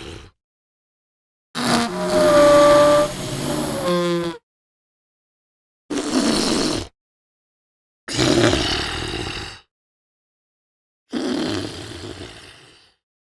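Cartoon balloon sound effects: four separate rushes of air, each stopping dead. The first is the longest, with a squeaky whine that warbles near its end, like air squealing out through a stretched balloon neck.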